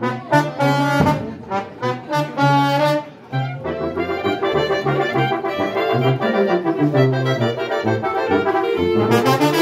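A brass band of trombones, trumpets, clarinets and sousaphone, with bass drum and cymbals, playing. It starts with short, separate accented chords for about three seconds, then plays continuously with a quick rhythm.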